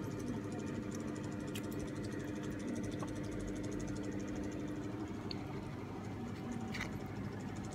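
Steady low machine hum with several even tones, broken by a few faint clicks.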